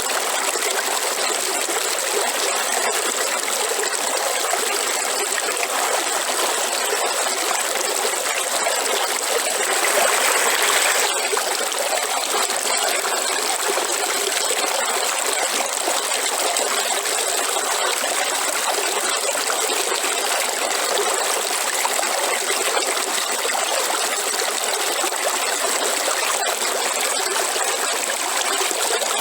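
River flowing steadily, a constant rush and trickle of water that swells briefly about ten seconds in.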